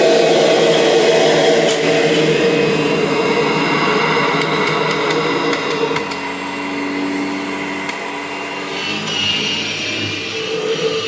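1998 Kirby Generation 5 upright vacuum cleaner running steadily, its motor tone changing about six seconds in, with a few light clicks in the middle.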